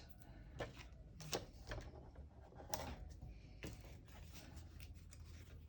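Faint rustling and a few light ticks of paper card and foam squares being handled on a tabletop.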